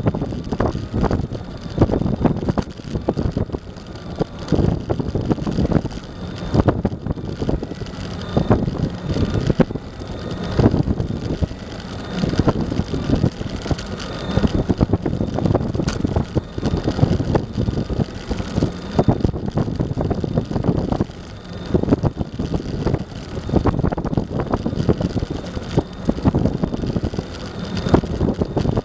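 Eglide electric skateboard rolling at speed: wheels rumbling over pavement under wind buffeting the microphone in uneven gusts, with a faint whine rising and falling.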